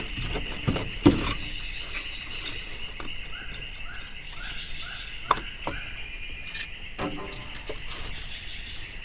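A steady, high-pitched insect chorus, crickets or similar, drones on throughout, with scattered short knocks and rustles.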